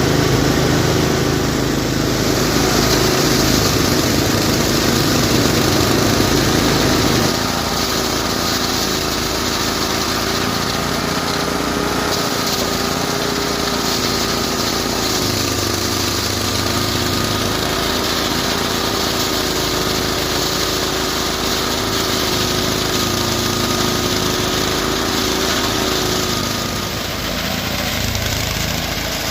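Small engine of a mini rice threshing machine running steadily. It is a little louder for the first seven seconds or so, then settles to an even drone.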